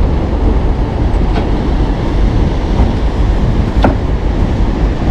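Ocean surf breaking on the beach, mixed with wind rumbling on the microphone: a steady low rumble with a couple of faint clicks.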